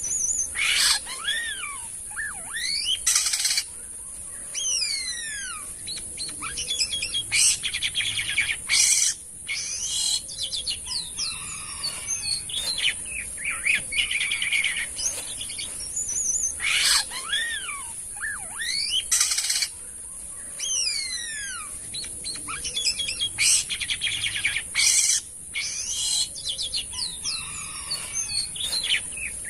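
Jalak kapas starling singing busily: strings of quick, sweeping rising and falling whistles broken by several loud, harsh rasping calls, over a steady high-pitched hiss.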